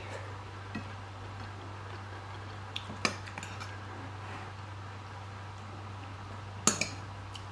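A few sharp clinks of a metal spoon against ceramic bowl and plate, the loudest about three seconds in and near the end, over a steady low hum.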